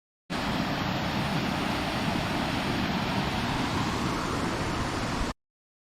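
Steady rush of flowing water, an even noise with no rhythm, that cuts in abruptly and cuts off abruptly after about five seconds.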